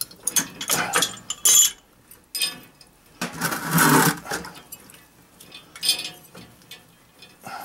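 Metal clinks and scrapes of an old brass boiler feed valve being handled and twisted by hand, with a louder rush of noise lasting about a second around three seconds in.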